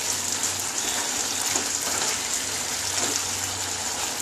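A pumpkin and potato curry sizzling and bubbling in a pan as a wooden spatula stirs it, with a couple of faint scrapes.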